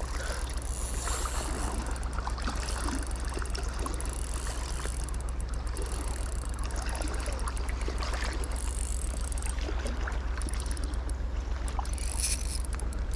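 Steady rush of moving creek water close to the microphone, with a deep steady rumble underneath.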